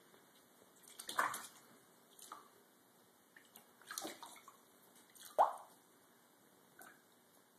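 A cat's paws patting and splashing in shallow water on a bathtub floor: about five short, separate splashes, the loudest about five and a half seconds in.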